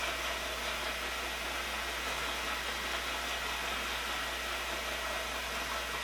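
Milling machine running steadily with an even hiss and a constant low hum, the sound of a continuous milling pass on a steel part.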